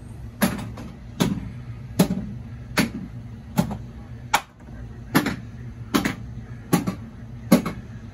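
Addams Family pinball machine's solenoid coils firing one after another in the solenoid test, a sharp clack about every 0.8 seconds, over a steady low hum. Each coil is pulsed in turn by the repaired WPC-089 power/driver board, which shows its drivers working.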